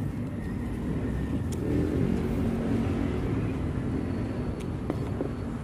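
Low rumble of a motor vehicle engine, swelling about two seconds in, with a few faint clicks.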